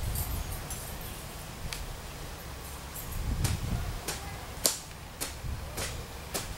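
A long-handled digging tool chopping and scraping into a pile of clayey earth: a string of sharp, irregular knocks, about one a second, the loudest a little past halfway through.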